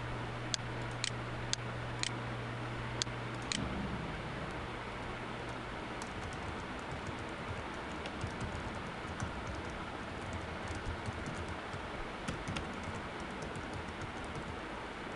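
Typing on a computer keyboard: irregular key clicks over a steady hiss. A few louder, separate clicks come in the first three or four seconds, while a low hum is still there; the hum stops at about that point.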